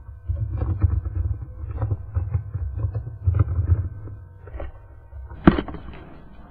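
Instrumental background music with a deep, pulsing bass and a few held high notes. A sharp accent comes about five and a half seconds in, and the music then dies down.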